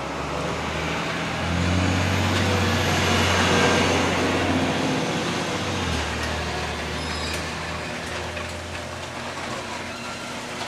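Motor vehicle engine running with road noise, a steady low hum that grows louder about a second and a half in and eases off around six seconds.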